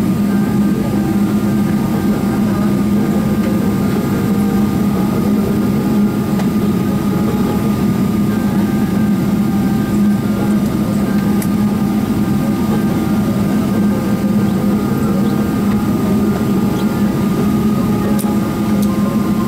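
Steady cabin noise inside a Boeing 777-300ER taxiing after landing: an even drone from its GE90 engines and cabin air, with a strong low hum and a faint higher tone running through it.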